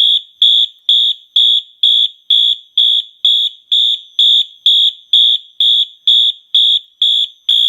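Wheelock MT multitone fire alarm horn sounding the march-time pattern: short, evenly spaced, high-pitched horn blasts about twice a second.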